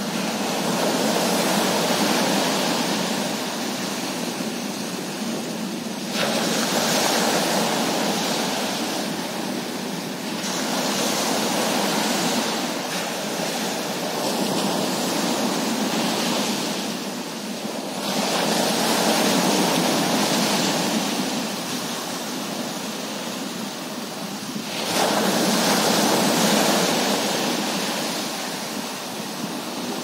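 Sea surf breaking on a sandy beach: waves crash and wash up the shore, swelling and easing in about five surges.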